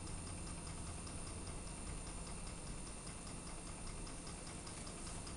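Homemade Ringbom Stirling engine running on its own heat just after starting, making a faint, rapid, even ticking as its crank and flywheel turn, over a low steady rumble.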